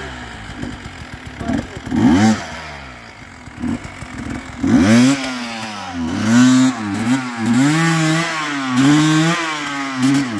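Enduro dirt bike engines on a steep muddy climb: low, uneven running and short blips at first, then about halfway through one engine revs up and down over and over, roughly once a second, as it is worked for traction.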